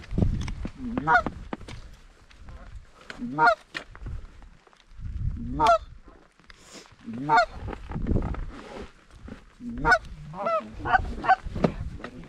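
Goose honks, short clucks and honks every second or two, coming faster near the end, over a low rumble of wind on the microphone.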